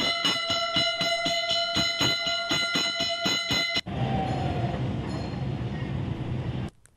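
Bells rung rapidly, about five strikes a second, with a steady high ringing tone. About four seconds in this gives way to a rushing noise with a low hum, which cuts off abruptly near the end.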